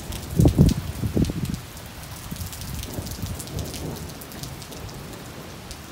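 Heavy rain falling steadily during a thunderstorm, with many small drop ticks, and a short low rumble about half a second to a second and a half in.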